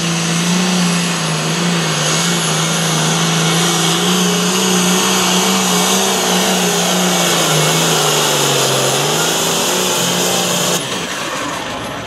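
Case IH hot farm pulling tractor's diesel engine running flat out under load as it drags a weight-transfer sled. Its pitch wavers and sags briefly about three-quarters of the way through, then picks back up. The sound drops off abruptly near the end.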